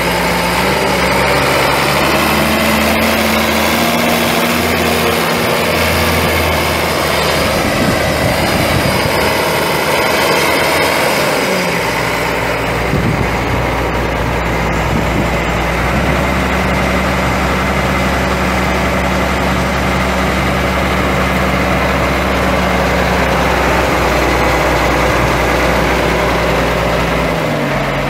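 Ford TW-20 tractor's 6.6-litre six-cylinder diesel engine running, its speed shifting a few times before holding steady through the second half and dropping back near the end.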